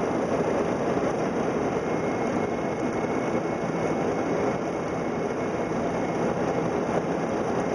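Steady roar of airflow and engines inside a Boeing 737-400's flight deck on final approach, with a faint steady high tone running through it.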